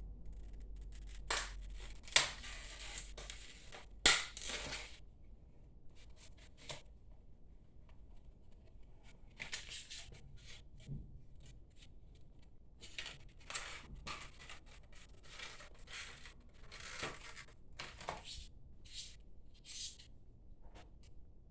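Packaging being handled and torn open in irregular rustling, crinkling bursts, with two sharp clicks about two and four seconds in.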